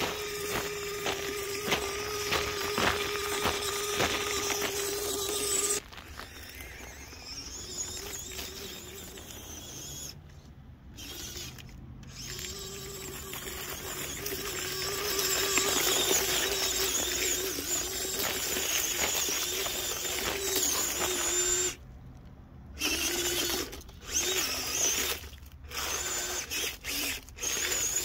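Small electric motor and gear train of a 1:18 scale RC crawler whining as it drives, crunching over icy snow and dry leaves. The whine stops and starts several times, with short breaks in the second half.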